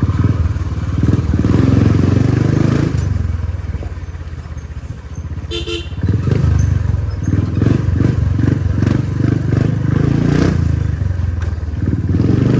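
Dirt bike engine running under way: it eases off and drops in level a few seconds in, then picks up and revs again about halfway through. A brief beep, like a horn, sounds just before the engine picks up.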